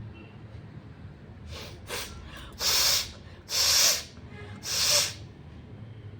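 A person forcing air hard through the nose: a couple of short, softer puffs, then three strong half-second blasts about a second apart.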